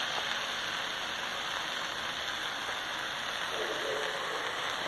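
Steady sizzling of an egg omelette and onions frying on a hot flat-top griddle.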